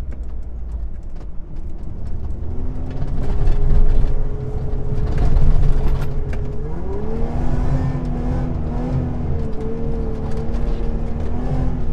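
Mitsubishi Pajero 4x4 engine pulling on desert sand. The engine note builds over the first few seconds, then rises in pitch a little past halfway and holds at the higher note.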